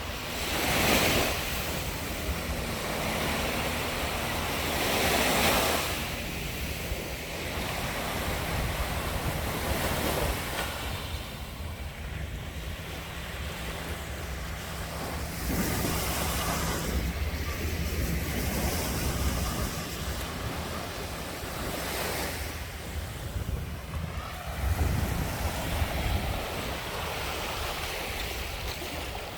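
Sea waves breaking and washing up a sandy beach, the surf swelling every few seconds, with wind rumbling on the microphone.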